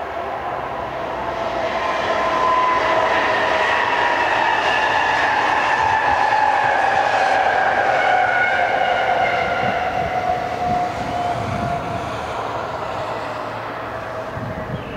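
Pågatåg electric multiple-unit train passing, its whine sliding slowly down in pitch over the rumble of the wheels on the rails. It grows louder during the first few seconds, then fades as the train moves away.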